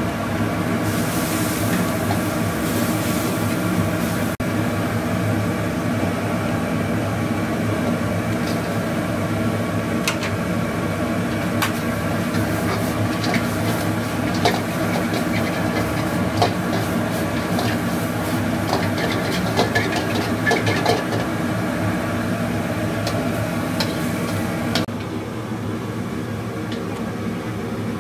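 Stir-frying at a wok station: a steady roar and hiss of the gas burner, with sharp clanks of a metal spatula against the wok, most frequent in the middle stretch.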